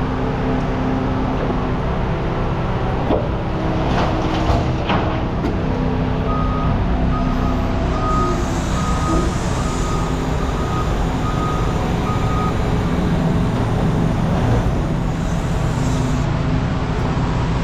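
A vehicle engine running steadily, with a reversing alarm beeping about eight times at even spacing in the middle, the alarm of a truck or yard machine backing up. A few knocks come a few seconds in.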